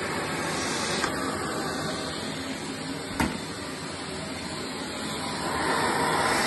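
Vacuum cleaner running steadily while it is worked over fabric sofa upholstery, with two short clicks about one and three seconds in, and the suction noise growing louder near the end.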